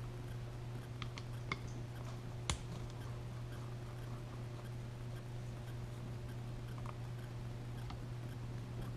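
Small carburetor parts and tools handled on a workbench: a few light clicks and taps, the sharpest about two and a half seconds in, over a steady low hum.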